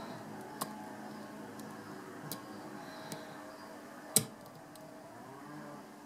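Scattered small metallic clicks of a hook pick working the wafers of a key safe's wafer lock held under a tension wrench, with one sharper click about four seconds in. A faint steady drone runs underneath.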